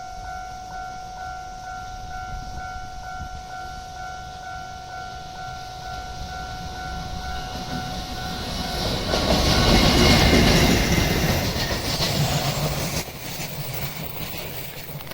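Electronic level-crossing alarm ringing with a steady repeating two-tone bell. Then a train passes over the crossing, loudest about ten seconds in, and its noise drops away sharply near the end.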